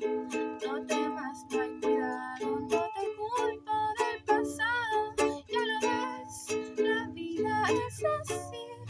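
Music: an acoustic string instrument strummed in a steady rhythm of chords, with a wavering melody line about halfway through.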